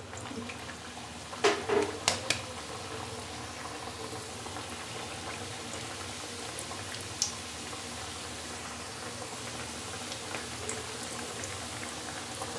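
Urad dal kachori deep-frying in hot oil in a steel kadhai: a steady bubbling sizzle, with a few sharp clicks about a second and a half in and one more around seven seconds.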